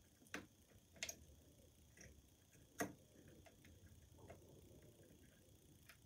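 Faint, scattered metallic clicks of a lever pick working the levers inside a Squire Defiant lever padlock under tension from a bent-nail tension tool; a handful of sharp ticks, the loudest a little under three seconds in.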